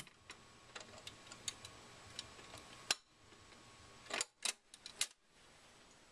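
Magnavox Mini record player's automatic tonearm return at the end of a 45 rpm single. Faint ticks of the stylus in the run-out groove give way to a sharp click about three seconds in. A quick run of clicks between four and five seconds in follows as the arm lifts, swings back and drops onto its rest, and the low hum underneath drops out.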